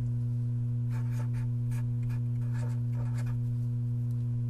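Marker tip writing on paper: two short spells of faint scratchy strokes, about a second in and again about two and a half seconds in, over a steady electrical hum.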